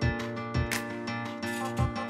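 Background music: sustained chords over a steady beat of about two beats a second.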